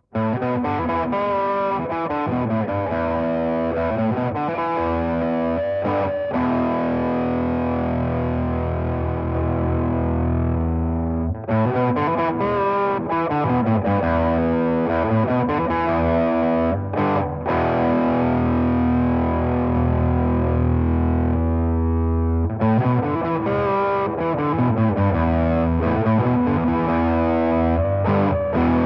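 Electric guitar played through a Custom Screamer V2, a Tube Screamer-style overdrive pedal, giving a distorted tone. It comes in suddenly and plays a repeating riff of chords and notes, going round about three times, with a held chord left to ring near the end of each pass.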